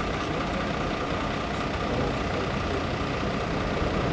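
A heavy engine idling steadily, a constant low rumble with no changes.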